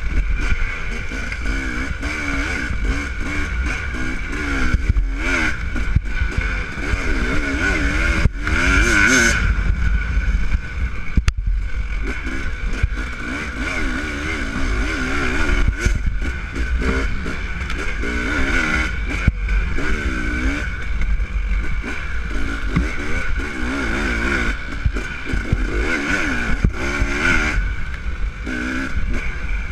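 Dirt bike engine revving up and down as the throttle is worked over a rough trail, its pitch rising and falling over and over with brief drops when the throttle is chopped.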